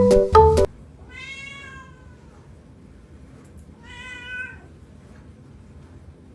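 A domestic cat meowing twice: one long meow a second in, then a shorter one about four seconds in. Mallet-percussion music stops just before the first meow.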